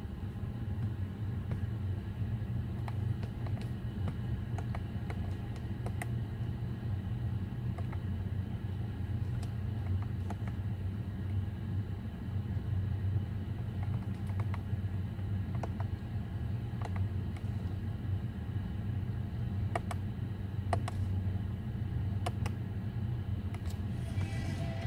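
Soft clicks of the Ford Mondeo MK4's steering-wheel control buttons, pressed one at a time to step through the dashboard menu, over a steady low rumble in the car cabin. Near the end, music from the newly selected Bluetooth audio starts through the car's speakers.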